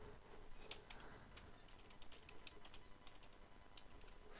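Faint typing on a computer keyboard: a quick, irregular run of keystrokes as a username and password are entered.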